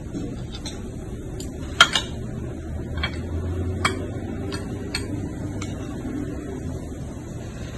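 Metal fork clinking against ceramic plates and a salad bowl while eating: about seven light, separate clinks, the sharpest two close together about two seconds in, over a steady low background hum.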